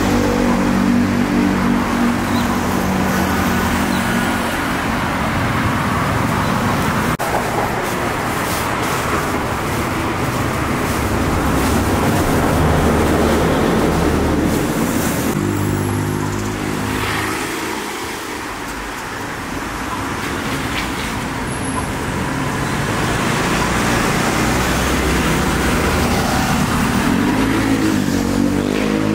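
Steady road traffic on a busy street: cars and other motor vehicles passing, with engine hum rising and falling and easing off a little past the middle.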